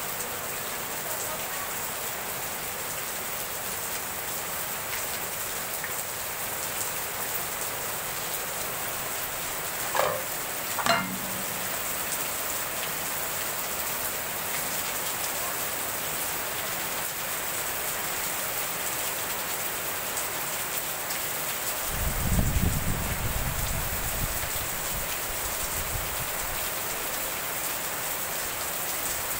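Heavy rain pouring onto paving and foliage, a steady hiss of falling water. Two short sharp knocks come about a third of the way in, and a low rumble lasting a couple of seconds comes past two-thirds of the way through.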